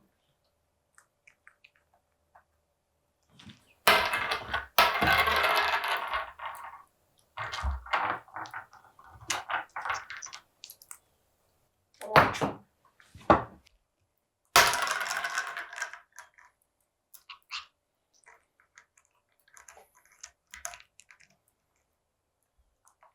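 Parrots working at a plastic parmesan bottle: scattered clicks and knocks, with several bursts of rattling and scraping lasting a second or two.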